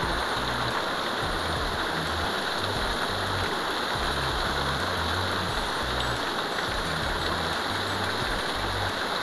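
Steady rush of flowing water, with the bass line of background music underneath.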